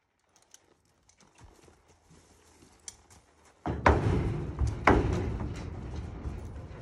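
Horse's hooves stepping up into a stock trailer: a few soft steps on dirt, then a sudden loud hollow clatter on the trailer floor about four seconds in, a second hard strike a second later, and a ringing from the trailer that slowly dies away.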